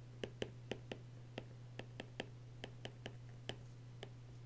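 Stylus tip clicking against a tablet surface while handwriting, about a dozen faint, irregular taps, over a steady low electrical hum.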